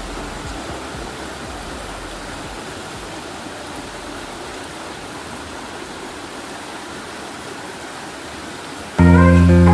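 Steady rushing noise of running water. About nine seconds in, loud acoustic guitar music cuts in suddenly.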